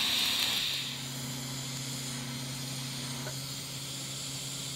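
TIG welding arc on steel hissing, louder for about the first second, then settling to a steadier, quieter hiss over a low steady hum.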